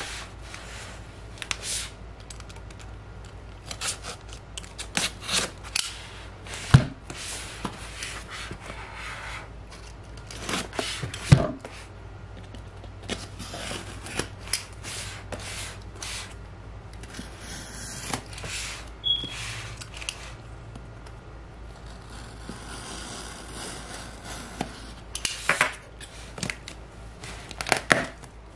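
Hands handling and opening a corrugated cardboard shipping box: cardboard scraping and rubbing, packing tape being cut along the seam, and many small clicks and taps. The loudest sounds are two sharp knocks about four seconds apart in the first half.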